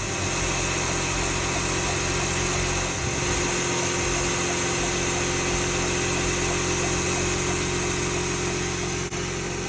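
Mercedes-Benz W204 engine idling steadily, with a steady high-pitched whine over the engine note.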